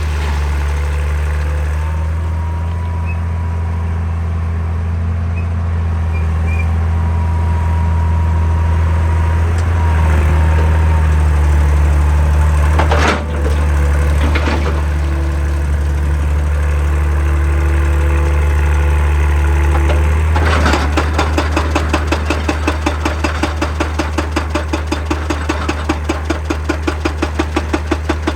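Hitachi excavator's diesel engine running steadily under hydraulic load, with a couple of sharp knocks midway. About two-thirds of the way in, its hydraulic rock breaker starts hammering, a fast, even pounding of about three strokes a second over the engine.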